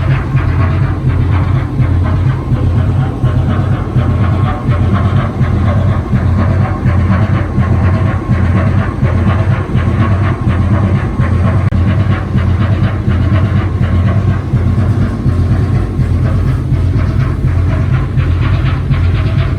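Six-cylinder marine diesel main engine of a coastal tanker running loudly and steadily, a deep drone with a rapid mechanical clatter over it.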